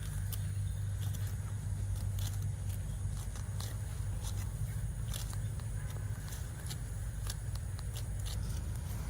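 Cattle hooves clopping and scuffing irregularly on a road as the herd walks past, over a steady low rumble.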